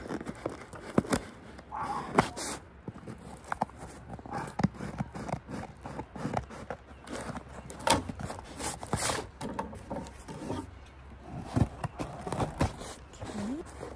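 A cardboard box and its packaging being handled and opened by hand: irregular rustling, scraping and sharp clicks.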